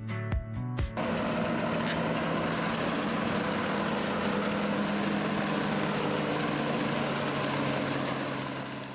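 Music ends about a second in, leaving the diesel engine of heavy harvest machinery running steadily with a low, even drone, which fades out near the end.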